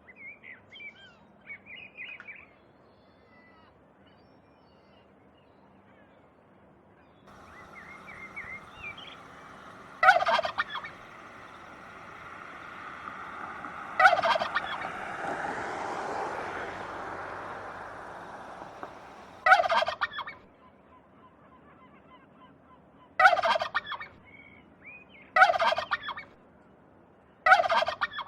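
Turkeys gobbling: six loud gobbles spaced a few seconds apart, starting about ten seconds in, with softer high-pitched calls in the first couple of seconds.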